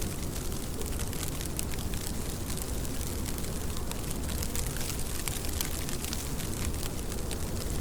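Steady rain, a dense patter of separate drop ticks over a constant hiss, with a deep rumble underneath.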